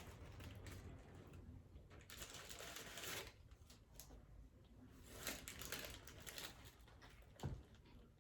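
Faint eating and food-handling noises: soft scattered clicks and crinkles, a brief rustle about three seconds in and a soft thump near the end.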